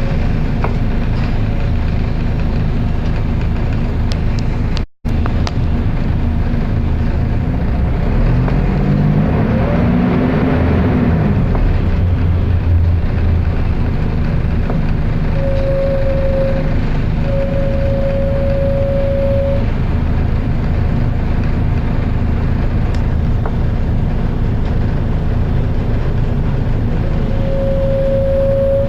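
Volvo B10BLE bus's very loud cooling fan running with its diesel engine, a steady roar with a low hum. Around eight to eleven seconds in, an engine note rises and falls, and a short high whine comes and goes a few times. The sound cuts out for an instant about five seconds in.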